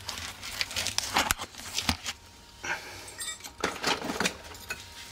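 Handling noises at the car's front wheel: a string of short rustles and scrapes with a few light metallic clicks and clinks, as hands, camera and a spanner move around the brake caliper.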